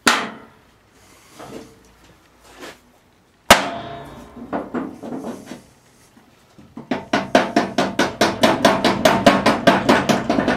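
Hammer blows on metal as a stuck blade-spindle jack shaft is driven out of a riding-mower deck spindle. There is one sharp ringing clang about three and a half seconds in, then from about seven seconds a fast, even run of blows, about five a second.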